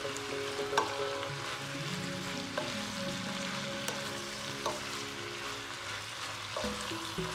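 Stir-fried chopsuey vegetables and shrimp sizzling in a nonstick pot while a spatula turns them, with a few light clicks of the spatula against the pan.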